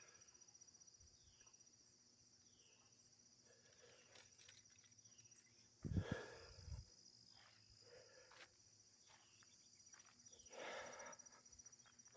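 Quiet rural morning ambience: a faint, steady insect trill with a few short, falling bird chirps now and then. A single loud thump about six seconds in.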